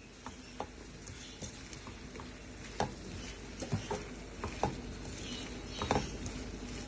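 A spatula stirring raw potato chunks into a sizzling tomato and onion masala in a non-stick frying pan: a steady sizzle with irregular knocks and scrapes as the pieces are turned over.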